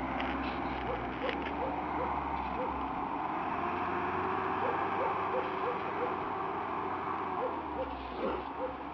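Mitsubishi Pajero 4x4's engine running as it pushes through deep snow, a steady drone whose pitch wavers up and down.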